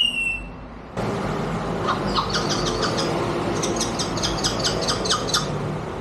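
A parrot imitating a scooter's starter cranking with the engine not catching: fast, evenly repeated strokes in two runs, after a short falling whistle at the start.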